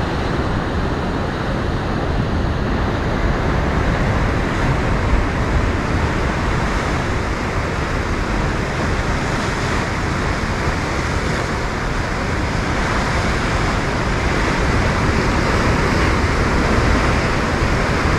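Steady rush of sea surf breaking on the shore, with wind buffeting the microphone.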